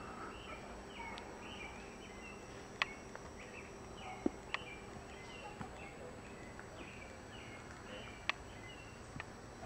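Footsteps on a woodland dirt trail, with a few sharp snaps and clicks of twigs underfoot, over a faint steady chorus of short high chirps about two a second.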